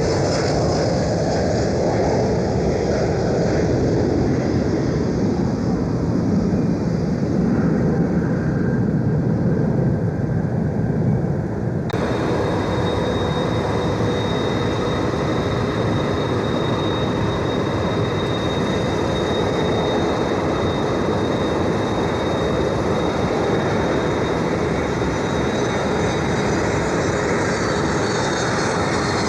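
Jet aircraft engines running loud and close, a heavy continuous rumble. About twelve seconds in the sound changes abruptly to a steadier engine noise with a thin high whine over it.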